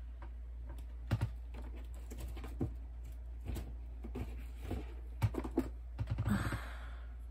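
Scattered light clicks and knocks of small plastic doll heads being handled and set down, with a short rustle about six seconds in, over a steady low hum.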